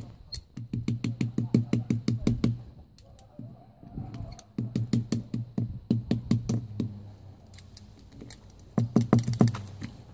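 Locking pliers knocking and chipping at a crumbly casting mould to break out a freshly cast aluminium cylinder cover. The taps come in three quick runs of about six a second.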